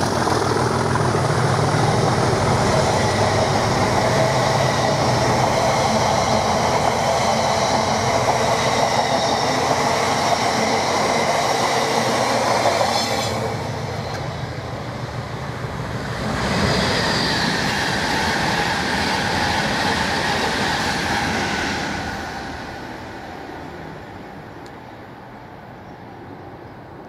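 Train passing on the railway: wheels rolling on the rails, then a second pass with a whine falling in pitch, fading away near the end.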